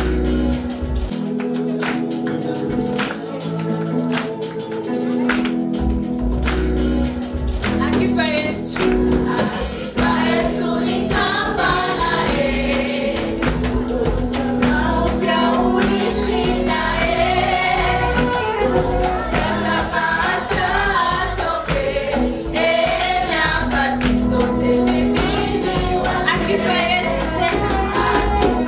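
Live gospel praise music from a church worship band with a steady beat; a group of singers comes in about a third of the way through and carries on over the band.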